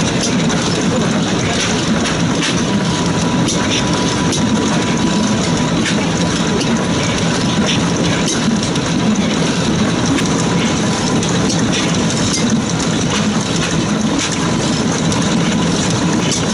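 Large early-1900s Van Eecke Gheysens 'La Fourmi' stationary gas engine running steadily, with light clicking from its valve gear and oiler.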